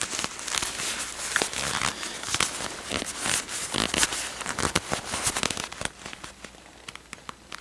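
Close-up ASMR handling sounds: crinkling and crackling with many quick irregular clicks. They grow quieter for the last second or so.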